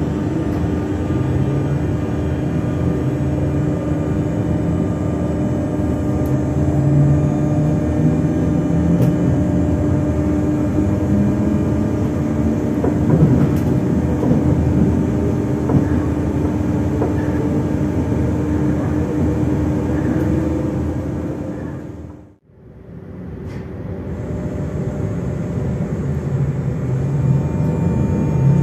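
SNCF Z 20831, a Z2N double-deck electric multiple unit, running with a steady electrical hum over a low rail rumble. About three-quarters of the way through, the sound drops away sharply and fades back in over a couple of seconds.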